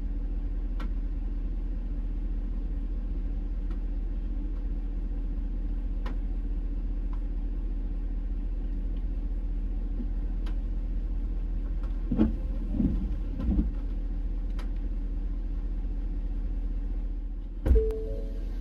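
Vehicle engine idling steadily, a low hum heard from inside the cab. A few low thumps come about twelve seconds in, and a loud thump comes near the end.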